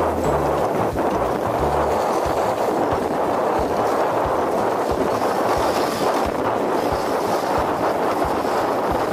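Husky-drawn dog sled gliding over packed snow: a steady rushing hiss of the runners and air moving past, with soft low knocks about twice a second later on.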